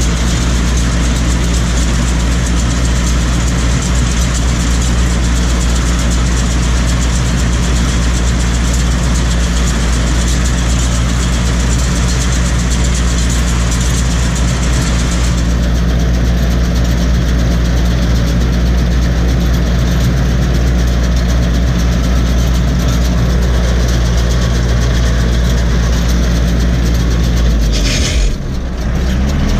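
Farm tractor's diesel engine running steadily under load, heard from inside the cab, as it pulls and drives a SIPMA PS 1312 hay baler. The sound dips briefly near the end.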